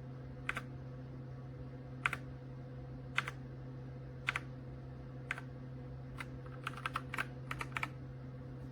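Keys of a Redragon K668 mechanical keyboard being pressed, single clicks about a second apart, then a quicker run of several presses near the end, over a steady low hum.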